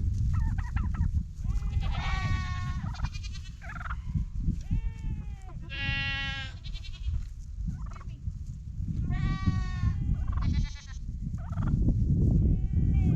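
Farm animals in a goat shelter calling over and over: about ten drawn-out, wavering calls that rise and fall in pitch, one every second or so. Constant low-pitched noise runs underneath.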